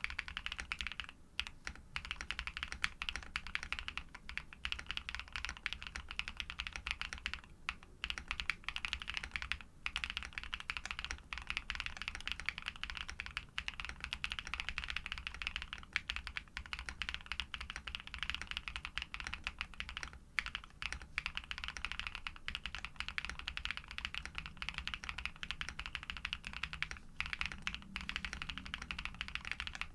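Continuous fast typing on a Neo80 v2 custom mechanical keyboard with lubed Pado v2 switches, PBT keycaps and a polycarbonate plate: a dense, steady run of keystrokes broken by a few brief pauses.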